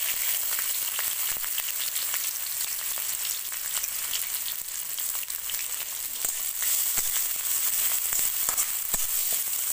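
Sliced onions frying in hot mustard oil in a metal kadai: a steady high sizzling hiss with many small crackles and clicks as they are stirred.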